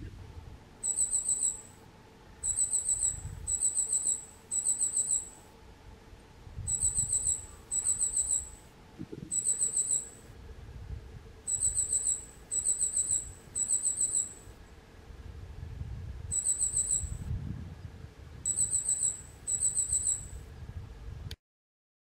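Goldcrest calling: a long series of short, very high, thin call bursts, each a quick run of a few notes, given in loose groups with short pauses between.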